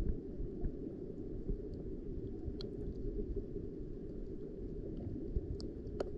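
Muffled, steady rumble of water heard with the camera submerged, with a few faint clicks scattered through it and one sharper click near the end.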